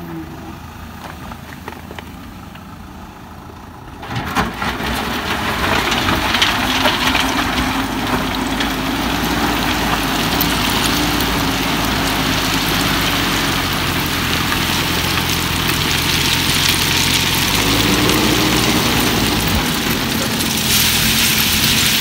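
JCB 4DX backhoe loader's diesel engine running, getting much louder about four seconds in as it works, mixed with the crunch and rattle of crushed stone ballast in and tipping from the front bucket.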